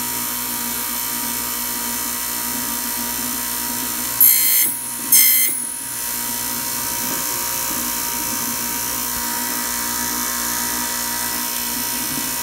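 Key-cutting machine running steadily, with two short high-pitched screeches about a second apart in the middle as the cutter bites into the brass Abloy DiskLock key.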